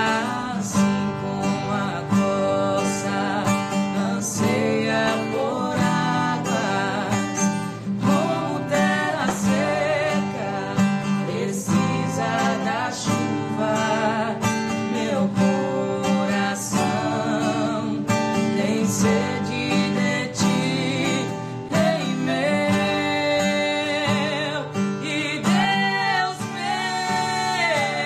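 A woman singing a Portuguese worship song with a wavering vibrato, accompanied by a steadily strummed acoustic guitar.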